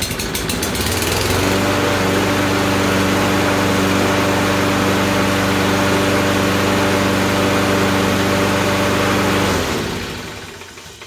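Toro push mower's Kohler single-cylinder engine pull-started, catching at once and picking up to a steady running speed within about a second and a half. It runs evenly, now that water has been cleaned out of its fuel tank and carburetor, then is shut off near the end and winds down.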